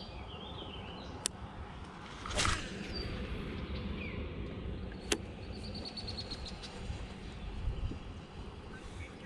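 Small birds chirping, with a short even trill a little past the middle, over a steady low rumble. About two seconds in there is a brief loud rushing burst, and single sharp clicks come about one second and five seconds in.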